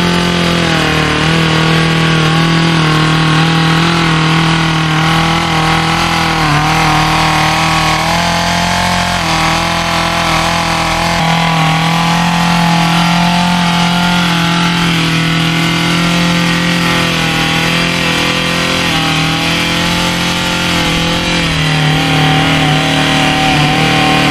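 Small gas-powered mini tiller (garden cultivator) engine running steadily at high speed as its tines dig into garden soil, the pitch dipping and rising slightly as it works.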